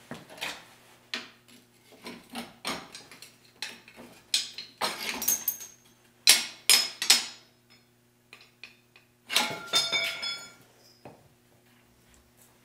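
Steel tools and parts clanking and clinking against a truck's leaf spring and frame as the spring is worked loose. A string of separate knocks, the loudest about six seconds in, some of them ringing like struck metal around the middle and again near ten seconds.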